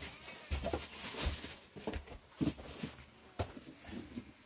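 Irregular light knocks, clicks and rustles of objects being handled by hand.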